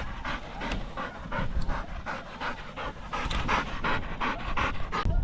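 Retrieving dog panting hard in quick, even breaths, about three or four a second, winded from fetching a downed goose.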